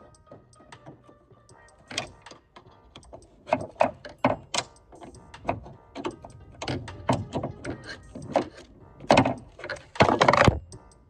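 Clicks and knocks of a flathead screwdriver prying at the metal ball-socket end fittings of a Dodge Challenger trunk-lid gas strut, popping the retaining clips. The taps come irregularly, with a half-second rattle near the end.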